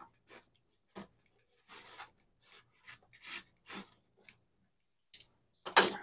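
Utility knife blade sawing through the wall of a polystyrene foam box: a series of short, irregular scraping strokes, with a louder one near the end.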